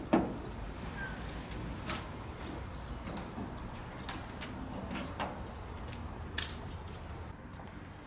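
Screwdriver clicking and scraping on the screws of an air-conditioner outdoor unit's terminal block as the wires are loosened and pulled free: scattered sharp clicks, the loudest just after the start, over a low steady background rumble.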